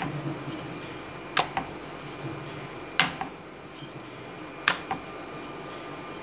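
A wooden rolling pin rolls out naan dough on a wooden board, giving three sharp wooden knocks about a second and a half apart over a low steady background.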